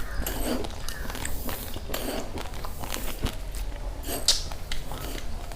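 Uncooked rice grains being bitten and chewed close to the microphone: a run of short, crisp crunches, with one louder crack about four seconds in.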